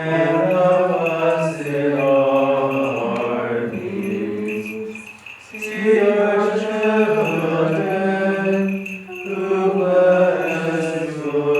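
Byzantine liturgical chant: voices singing long, sustained phrases of a hymn, with short breaths between phrases about five and nine seconds in.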